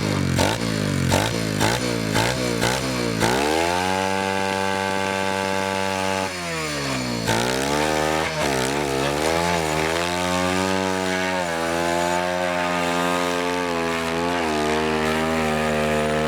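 Kawasaki KLX110 pit bike's small single-cylinder four-stroke engine revved hard at full throttle while the bike is stuck in deep snow. It gives a few quick throttle blips over the first three seconds, then holds at high revs, dips about seven seconds in, and rises and falls after that.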